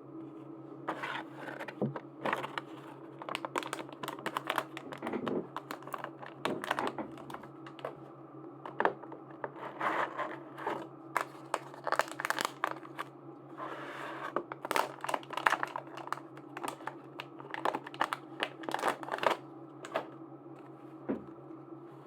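Plastic packaging crinkling and rustling in hands, with irregular crackles and small clicks as a blind-packaged charm is opened, over a steady low hum. The handling stops a few seconds before the end.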